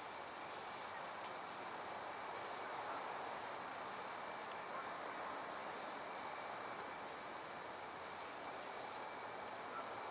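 A short, high chirp repeating about every one to two seconds, eight times or so, over steady outdoor background noise.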